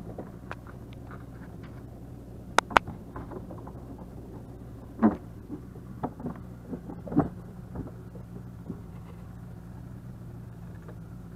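Boat's outboard motor running with a steady low hum, with two sharp clicks about two and a half seconds in and a few knocks around five to seven seconds.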